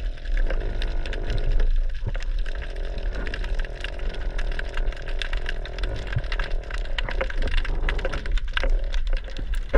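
Underwater crackling: a dense, irregular patter of sharp clicks over a steady low rumble, as picked up by a camera beneath the sea surface.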